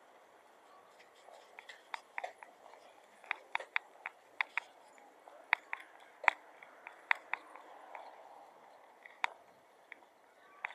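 Sharp, irregular clicks and taps, about fifteen of them and bunched in the middle, over a faint steady background hiss.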